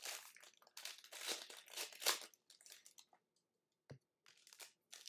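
Trading card pack wrapper being torn open and crinkled by hand, in dense crackling rustles for the first two seconds, then sparser, with one soft tap just under four seconds in and more crinkling near the end.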